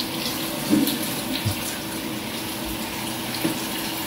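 Steady, even hissing like running or sizzling water, with scattered small crackles.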